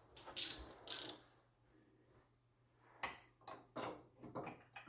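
Metal socket-set tools (socket wrench and extension bars) clinking and clicking as they are fitted together and tried on a bolt: a short burst of clatter near the start, then a run of sharp clicks in the last two seconds.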